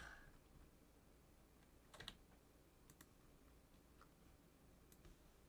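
Faint, scattered clicks from a computer keyboard and mouse, a handful over the few seconds, the loudest about two seconds in.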